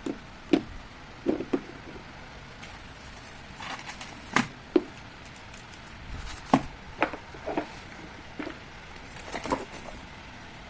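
Tokyo Marui Mk23 spring airsoft pistol being handled: about a dozen sharp clicks and clacks at irregular intervals, some in quick pairs.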